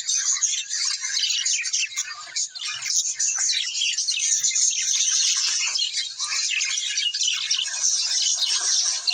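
A flock of Australian birds chattering, with many high, rapid chirps and calls overlapping without a break.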